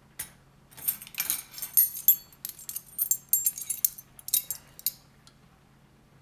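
Small metal measuring spoons jangling and clinking together in a quick, irregular run of light clinks, which stops about five seconds in.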